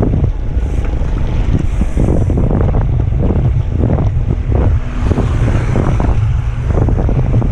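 Heavy wind buffeting on the microphone of a rider's camera on a moving mountain bike: a loud, irregular low rumble with gusty rushes.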